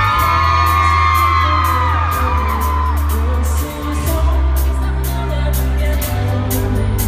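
Live rock band playing at full volume, with electric guitar, heavy bass and drum hits at an even beat. Over the first three seconds, high screams from the crowd slide up and down over the music.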